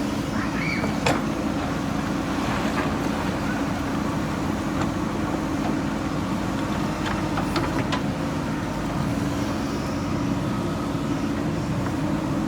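JCB backhoe loader's diesel engine running steadily, with a few short clicks.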